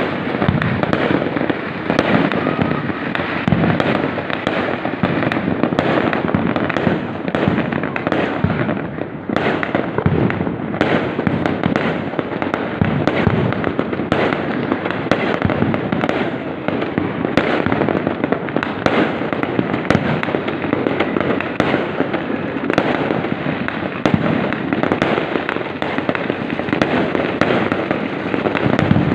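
Fireworks going off continuously: a dense, unbroken barrage of bangs and crackles, many per second, with a brief lull about nine seconds in.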